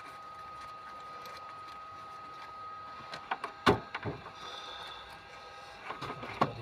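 Metal tools and engine parts knocking and clinking during hands-on engine work: a few sharp knocks a little past halfway, the loudest just after, and more clatter near the end, over a faint steady high-pitched hum.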